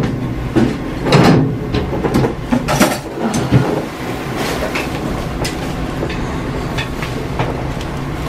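Cloth sheet rustling as a person shifts and pulls it over herself on an exam table, with a few soft knocks in the first few seconds, over a steady low background rumble.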